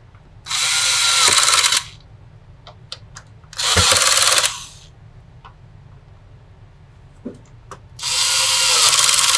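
Cordless electric screwdriver driving screws in three short runs of a second or so each: about half a second in, near four seconds in, and again near the end. Small clicks of handling come between the runs.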